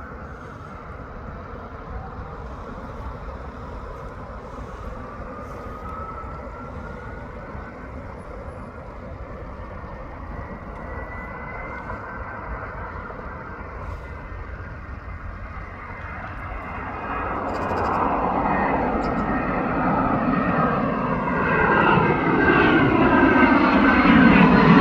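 Jet airliner's engines, with a whine that rises in pitch over several seconds, then a growing rush that gets steadily louder as the aircraft comes closer, loudest near the end before it cuts off suddenly.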